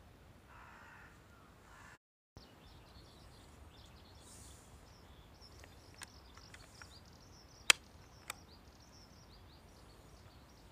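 Two sharp plastic clicks about eight seconds in, the second softer, from the Stihl MS201C chainsaw's throttle trigger and master control lever being set to the cold-start position. Faint bird calls and chirping are in the background.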